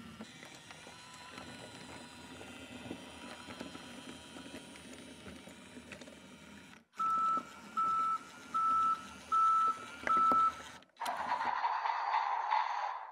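BRIO Smart Tech Sound battery toy train running on wooden track, its motor and wheels making a steady low rumble. After that it gives five evenly spaced electronic beeps, typical of the reversing signal set off by an action tunnel. A short, louder hissing sound effect from its speaker follows near the end.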